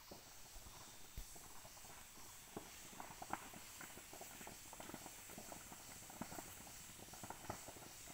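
Faint, irregular crackling and popping of a slash-and-burn (jhum) fire burning cut bamboo and brush, over a steady faint high hiss.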